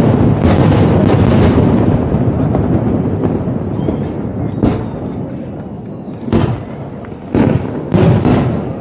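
Aerial fireworks bursting: a dense, continuous barrage of bangs and crackle that thins out over the first few seconds, then single loud booms about halfway through, twice more near the end, and once again just after.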